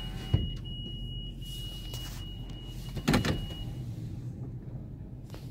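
Automatic drive-through car wash machinery heard from inside an SUV's cabin, with the engine idling. A steady low hum runs under a thin high whine that stops about two-thirds of the way through, with a click just after the start and a short louder burst a little past halfway.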